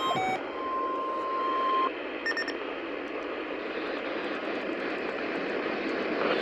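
Weather radio receiver hissing with static on a weak broadcast signal. A steady single tone sounds for about a second and a half near the start, a brief beep follows about two seconds in, and the hiss turns brighter near the end.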